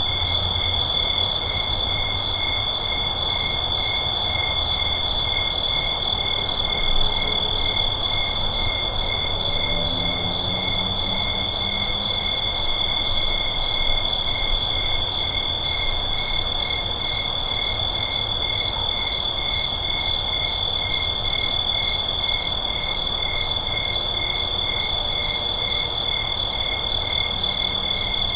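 Summer-night chorus of crickets singing: a steady high trill with faster and slower rhythmic chirping layered over it, and a higher buzzy chirp every couple of seconds. A faint low rumble runs underneath.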